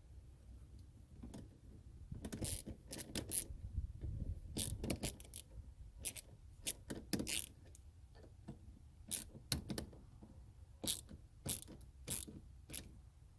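Irregular metallic clicks, rattles and scrapes of hand tools working a hose clamp onto a coolant hose, in uneven clusters with pauses between.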